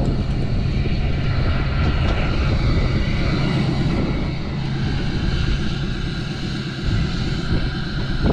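An engine running steadily, a loud low drone.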